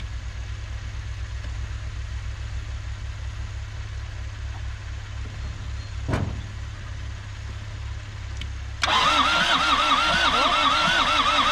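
Starter motor cranking the Isuzu P'up's four-cylinder turbo diesel, which begins abruptly about nine seconds in. Its whine rises and falls with each compression stroke while the engine turns over without firing. Before that there is a low steady engine rumble and one sharp thump.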